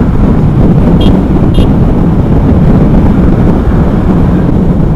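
Steady wind rush buffeting a helmet-mounted camera microphone at riding speed on an electric motorcycle, with the low rumble of surrounding road traffic underneath.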